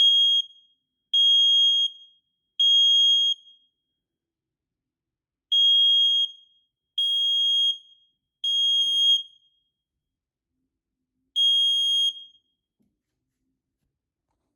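First Alert 770LBX dual-sensor smoke alarm sounding on test: loud, high-pitched beeps in the temporal-three pattern, three beeps, a pause, three more beeps, then one last beep before it stops.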